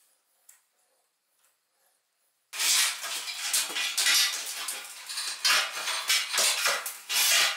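Plastic cable drag chain clattering and clacking as its links are lifted and flexed, a dense rattle of many sharp clicks that starts suddenly about two and a half seconds in, after a few faint clicks.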